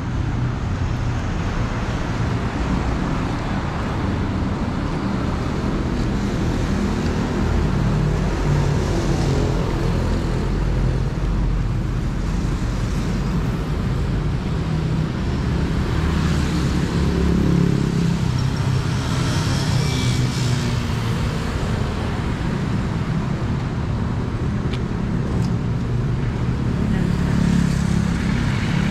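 Busy city road traffic: a steady rumble of vehicle engines and tyres, swelling a little as vehicles pass.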